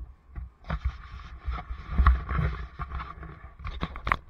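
Irregular knocks, clicks and rustling close to the helmet-camera microphone, with low rumble, as the bicycle is turned around on the sand; loudest about two seconds in.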